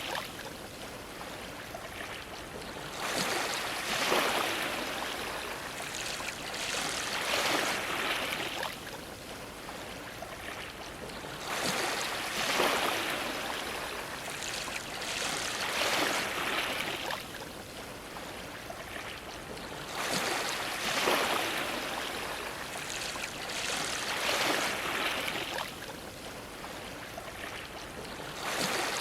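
Ocean waves washing against a dock, a steady wash of water that surges about every four seconds.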